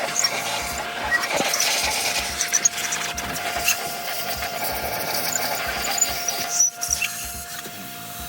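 Cleaning a bare GM LS V8 engine block with wire brush and scraper tools: a continuous rough scratching rasp of bristles and metal on cast metal, with many small clicks and ticks.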